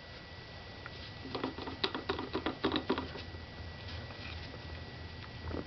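Bad CV joint on a Volkswagen Passat's drive axle clicking, in quick bunches of rapid clicks between about one and three seconds in, over a low steady hum.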